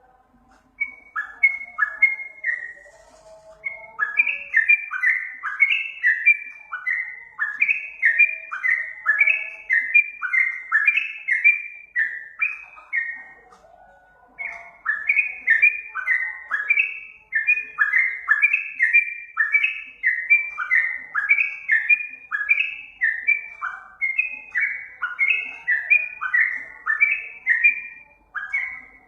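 Yellow-vented bulbul (trucukan) singing: fast runs of short, bubbly, downward-slurred notes repeated over and over, with a brief pause about halfway through. Fainter lower chattering lies beneath.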